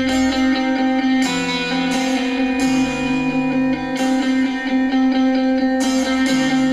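Guitar music played back through a small budget Bluetooth speaker and picked up by a microphone. It has a held low drone and chords that change every second or two.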